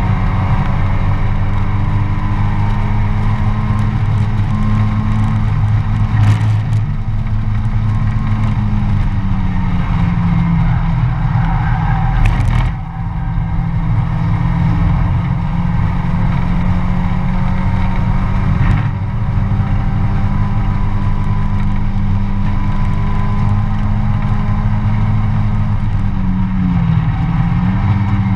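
Mazda MX-5 race car's four-cylinder engine running hard under racing load, heard from inside the stripped cockpit. The steady drone is broken by a few brief dips, the deepest about halfway through.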